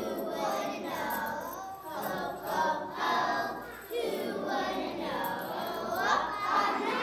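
A group of young children singing a song together in unison, in phrases about a second long.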